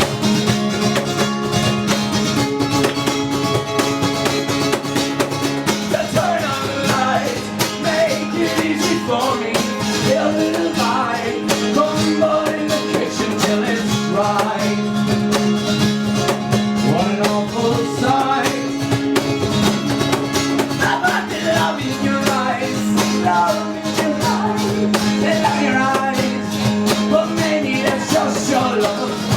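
Live band music: acoustic guitar strummed over a held low chord, with a wavering melodic lead line coming in about six seconds in.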